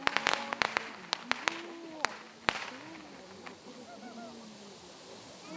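Fireworks cracking and popping, a rapid scatter of sharp reports in the first two and a half seconds that thins to occasional pops, with faint voices of onlookers underneath.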